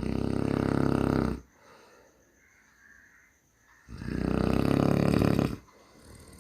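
A person snoring: two loud snores, each about a second and a half long, the second coming about four seconds after the first.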